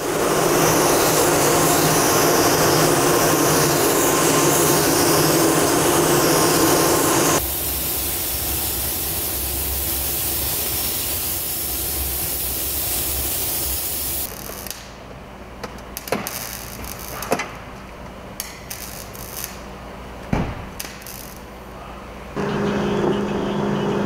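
Compressed-air paint spray gun hissing as paint is sprayed onto car body panels, in two stretches, the second a little quieter with more low rumble. Then a quieter spell with a few sharp clicks and knocks. Near the end a steady hum comes in.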